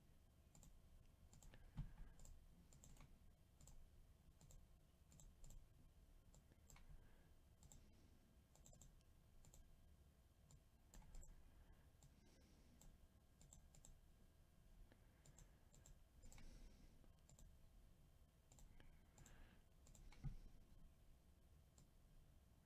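Near silence broken by faint, scattered clicks of a computer mouse, irregularly spaced, with a slightly louder thump near the start and another near the end.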